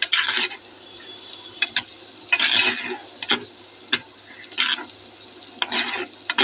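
Spatula stirring and scraping in a kadai of onions, green chillies and cumin frying in oil: short scrapes at irregular intervals, about one a second, over a faint sizzle.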